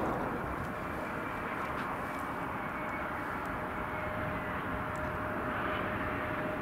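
Embraer E175 twin-jet landing, its CF34 turbofan engines running at low power with a steady whine over a broad rush of jet noise.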